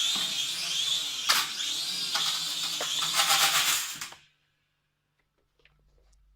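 Small quadcopter drone's motors buzzing at a whine that wavers in pitch, with a sharp knock, a few smaller knocks and a rapid rattle as the drone crashes and its propellers strike something. The sound cuts off suddenly about four seconds in.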